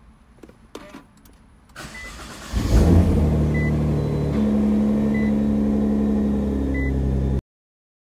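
Nissan GT-R's twin-turbo V6 started with the push button: a few clicks, a brief crank, then it catches about two and a half seconds in with a short rev flare and settles into a steady idle, starting cleanly with a replacement starter motor fitted. A short electronic chime beeps four times, about every second and a half.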